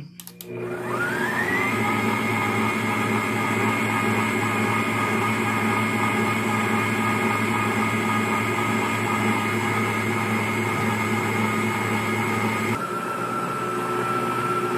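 Electric mixer switched on and beating pound cake batter. The motor whine rises over the first couple of seconds and then runs steadily. About 13 seconds in it drops to a lower pitch and keeps running.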